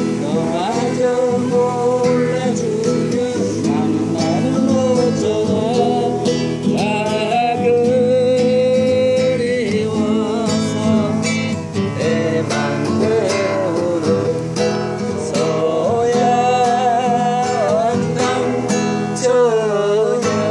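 Background music: strummed acoustic guitar with a sung melody that wavers and slides in pitch.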